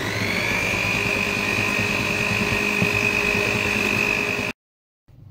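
Electric hand mixer with twin wire beaters running at high speed in thick cake batter, beating in the flour: a steady high motor whine over a churning rumble, which cuts off suddenly near the end.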